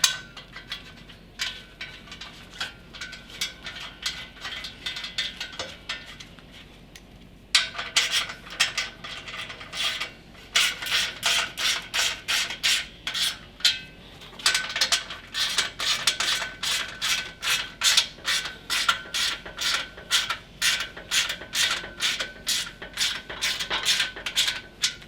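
Ratchet wrench clicking as a 3/8 bolt is run down and tightened on a steel brake-stand bracket. There are a few scattered clicks at first, then a steady run of quick, even clicks from about a third of the way in, with a brief pause partway.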